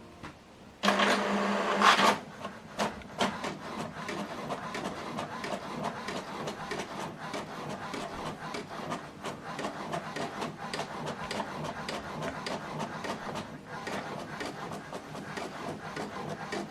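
HP DeskJet 4220e inkjet printer printing the second side of a manually flipped duplex sheet. About a second in, a loud motor noise lasts about a second as the paper is drawn in. Then the print carriage shuttles steadily with rapid ticking.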